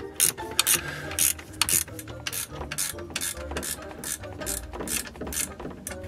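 Socket ratchet wrench clicking in repeated bursts, about two or three strokes a second, as it tightens the alternator belt adjuster bolt.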